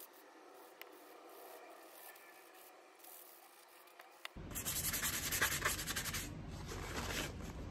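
Sanding sponge scrubbing the wet steel blade of a carving chisel to rub off the black oxide film left by a vinegar-and-salt rust soak. It starts as faint, light rubbing, then about four seconds in gives way to a louder run of quick scrubbing strokes for about two seconds before easing off.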